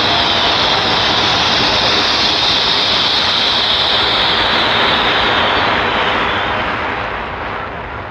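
Fireworks crackling in a dense, continuous hiss with no separate bangs, fading away over the last couple of seconds.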